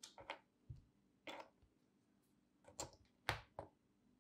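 Hands fitting small 3D-printed plastic parts onto the saw's plastic base, giving a series of faint clicks and taps, about six in all, the loudest a little past three seconds in.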